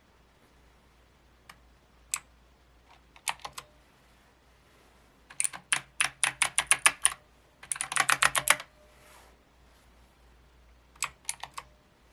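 Keys of a Micronics MANIC Z-K9 mechanical keyboard being pressed: a few single clicks, then a fast run of keystrokes and a dense cluster about halfway through, and a few more near the end, with pauses between.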